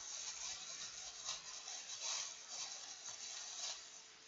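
Clear plastic bag crinkling and rustling in the hands as chopsticks pick food out of it, in irregular bursts.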